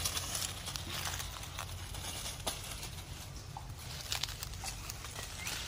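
Dry leaf litter and twigs rustling and crackling as something moves through the undergrowth: a run of small, irregular crackles and snaps over a low, steady rumble.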